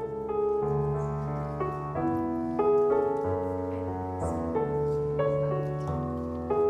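Keyboard playing a slow instrumental passage: held chords that change about every second, over sustained low bass notes.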